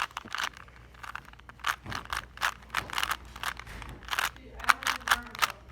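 Plastic Rubik's Cube being twisted: quick, irregular clicks and scrapes as its layers are turned several times a second.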